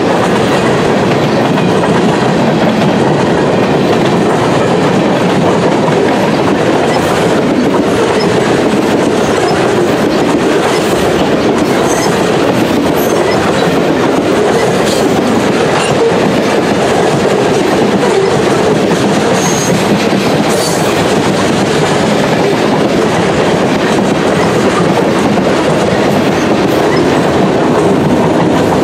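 Cars of a mixed freight train rolling past close by: a steady, loud noise of steel wheels running on the rails, with a few brief, faint high squeaks.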